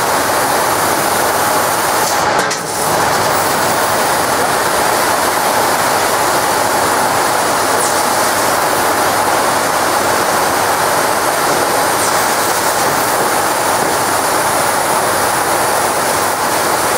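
A 1200 W fiber laser cutting 10 mm carbon steel: a loud, steady hiss of assist gas jetting through the cutting head's nozzle into the kerf, with a faint steady tone underneath. The level dips briefly about two and a half seconds in.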